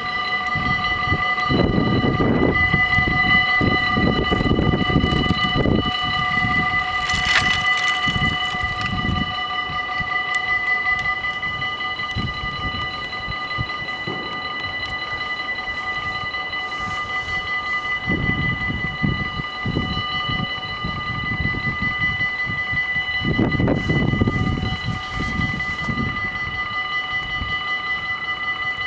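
Dutch automatic level-crossing warning bells ringing steadily while the crossing is closed and the half-barriers lower, with bursts of low rumble now and then.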